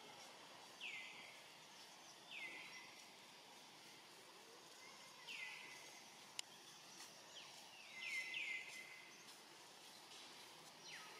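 Short calls falling in pitch, about six of them, two close together past the middle, over faint outdoor background noise, with a single sharp click a little after the middle.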